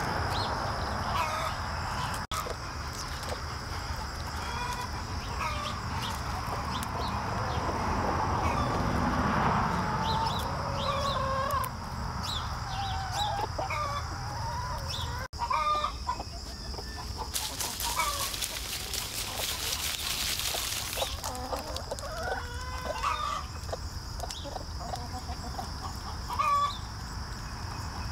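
A flock of hens clucking and calling as they forage, many short overlapping calls. A faint steady high whine runs underneath, and a loud hiss lasts about four seconds around two-thirds of the way through.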